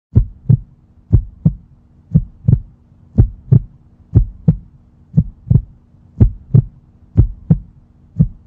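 Heartbeat sound effect: paired deep thumps, lub-dub, about once a second, over a faint steady low hum.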